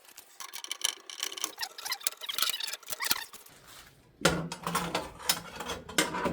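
A long screwdriver working a screw loose inside a vending machine door: quick, irregular metal clicks and scrapes. From about four seconds in it gets louder, with a low steady hum under sharper clicks.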